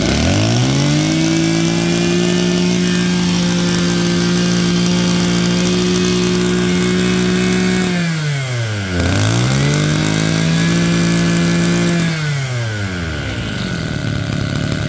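Mitsubishi TL23 two-stroke brush cutter engine revved hard and held at high speed for about eight seconds, dropping briefly, then revved again for about three seconds before falling back to idle.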